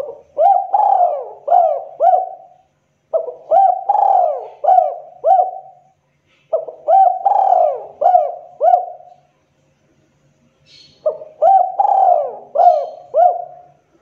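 Spotted dove (tekukur) cooing in four phrases of about five quick hooked coos each, separated by short pauses. It is the sharp call of a dove in breeding mood.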